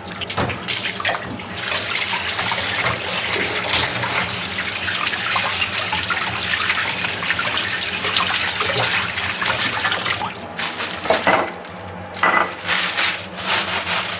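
Kitchen tap running into a stainless steel sink while a tomato is rinsed by hand under the stream, a steady splashing. The water stops about ten seconds in and a few knocks and clatters follow.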